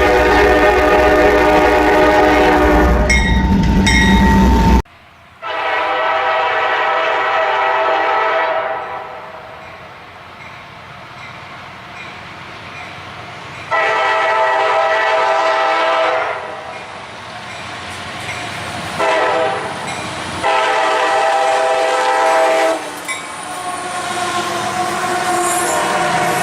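Nathan Airchime K5LA five-chime locomotive air horn sounding its chord in a series of blasts: one with the locomotive rumbling underneath, cut off suddenly about five seconds in, then long, long, short and long blasts, and another starting near the end.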